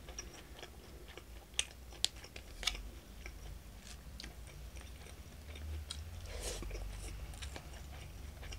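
A person chewing a mouthful of soft squid tempura and sauce-soaked rice close to the microphone. Three sharp clicks come between about one and a half and three seconds in, and the chewing swells a little later on.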